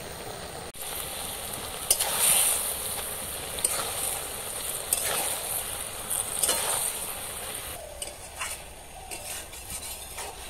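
A metal spatula stirring and scraping chanda fish, thin brinjal and spring onion charchari in a metal karai, the food sizzling over the fire. The scraping is loudest from about two seconds in and thins to scattered clicks near the end. This is the final stir of the finished dish.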